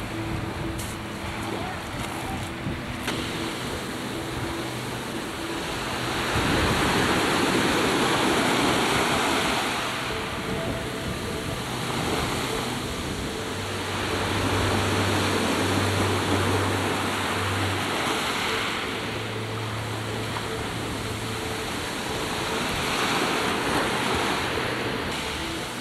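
Wind and choppy sea washing, swelling and easing every few seconds. A low hum comes and goes beneath it, loudest about midway through.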